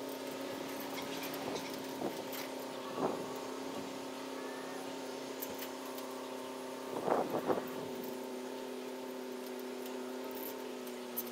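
Plastic zip ties being pulled and ratcheted tight on wire hardware cloth against a metal rim, in short clicky bursts a couple of times early on and most strongly about seven seconds in. Underneath, a steady motor hum with several held tones.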